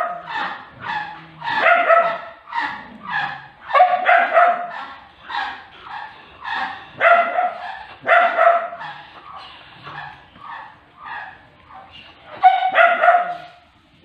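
A dog barking over and over, two or three quick barks a second, stopping near the end.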